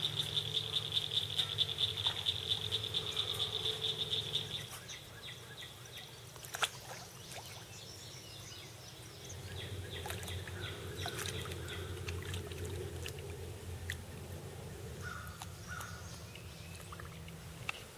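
A high-pitched, rapidly pulsing trill of a small calling animal for the first four or five seconds, then a quieter background with a low steady hum that grows louder about halfway through, and a few faint ticks.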